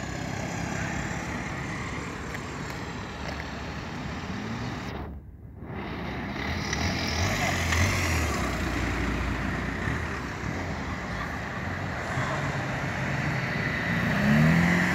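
Car engines and exhausts running as cars drive slowly past, a low rumble that swells around the middle, with a short engine rev rising and falling near the end.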